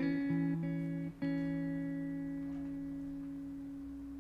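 Background music on plucked guitar: a few notes picked, then a chord struck about a second in and left ringing, slowly fading.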